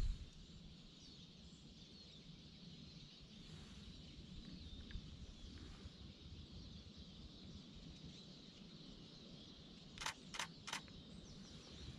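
Faint chorus of small birds singing, with a camera shutter firing three times in quick succession near the end.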